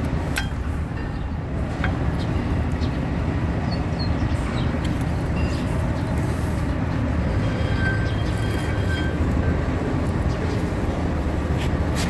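A steady low rumble with a few short metallic clicks as new brake pads are pushed into a Coaster bus's disc brake caliper.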